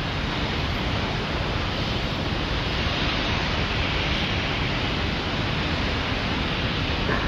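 Steady rushing wind noise on the microphone, an even hiss with no distinct events.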